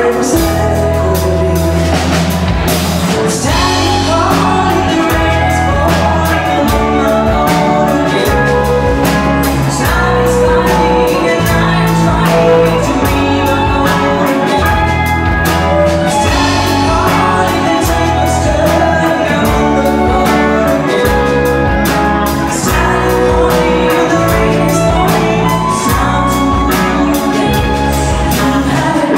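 Live rock band playing at full volume: a woman singing lead over drums, bass guitar, keyboard and violin.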